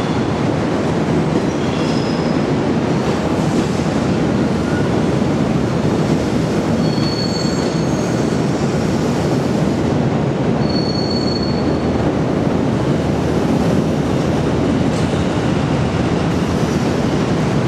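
Sleeper-train coaches of the Hokutosei express rolling along the platform: a steady rumble of steel wheels on rail, with brief high wheel squeals about 2, 7 and 11 seconds in.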